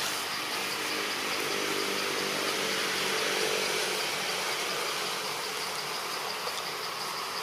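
Steady outdoor insect chorus: an even high buzzing hiss with fast regular pulsing. A faint low hum swells and fades in the middle.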